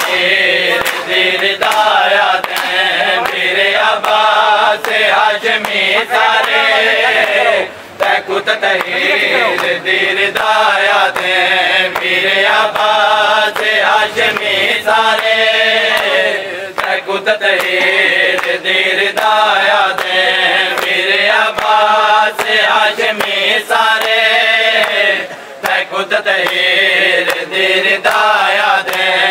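Men chanting a noha, a Shia mourning lament, in a group, with the sharp slaps of bare-handed chest-beating (matam) running under the chant. The chant breaks off briefly about eight seconds in and again near the end.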